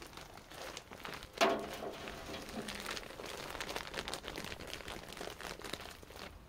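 Plastic bag of potting compost crinkling as it is handled, with a sharp rustle about a second and a half in, then compost pouring from the bag onto a wire-mesh sieve with a continuous crackling rustle.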